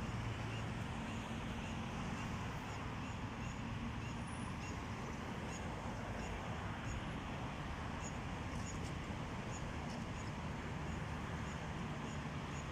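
Steady rumble of distant road traffic, with an insect chirping high and regularly about twice a second.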